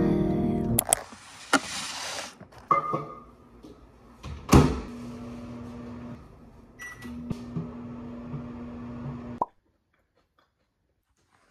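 Kitchen sounds: a loud knock, then a steady low hum with a few small knocks that cuts off abruptly.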